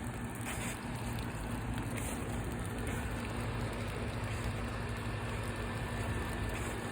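Steady outdoor noise, an even rain-like hiss over a low hum.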